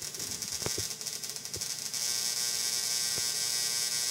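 Small dual-resonant solid-state Tesla coil (DRSSTC) running at low power, its spark discharge making a fast, high buzz that settles into a steadier, louder hiss about halfway through. A few sharp clicks come in the first half. The coil is running properly again on its new IGBTs.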